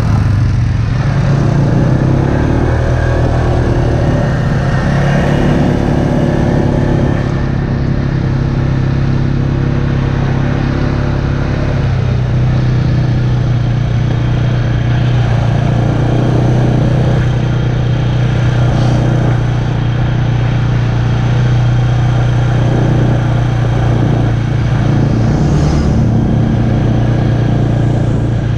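ATV engine running close to the microphone while riding along a dirt track. Its note shifts over the first few seconds, then holds steady at a constant pace.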